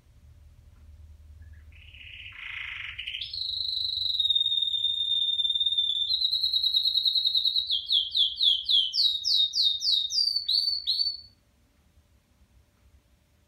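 Red factor canary singing a song phrase. It opens with a short harsh buzzy note, holds a long clear whistle, then rises a little and breaks into quick down-slurred notes at about three a second. It ends with two sharp notes and stops abruptly.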